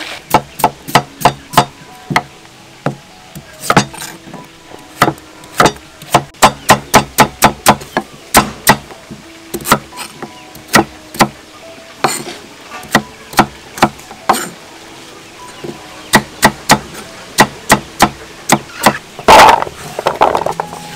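Kitchen knife chopping carrots on a thick round wooden chopping board: a run of sharp knocks, a few a second, in irregular spurts with short pauses, and a louder, longer noise near the end.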